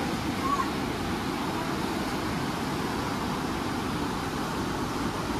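Steady rushing of a swollen river running fast over rapids, an even noise without rhythm.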